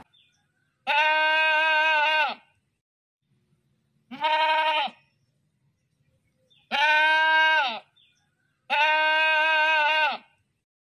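A goat bleating four times in long, steady, nasal calls. The second call is shorter, and each one dips slightly in pitch as it ends.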